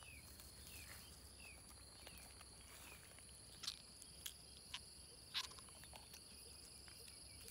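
Faint outdoor ambience: a steady high-pitched insect drone, with short falling chirps repeated about every second in the first half. A few soft clicks come in the middle.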